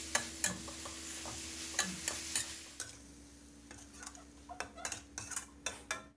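Metal spatula scraping and clacking against a wok as water spinach and pork belly are stir-fried, over a sizzle that fades about halfway through.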